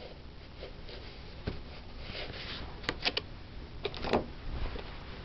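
Faint handling sounds of fingers separating the twisted-pair conductors of a freshly stripped Cat 5 cable: soft rustling, with a cluster of small clicks about three seconds in and another about a second later.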